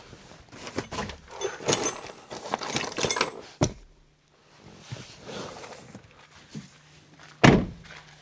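Metal clinks, rattles and knocks of equipment being handled and moved, busiest in the first half, with a sharp knock a little past three seconds in and one loud heavy thump near the end.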